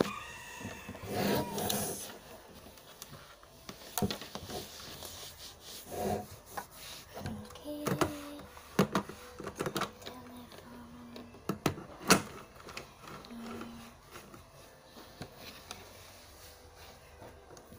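A cloth rubbing and wiping across a wooden tabletop close to the microphone, with scattered sharp knocks and bumps on the table.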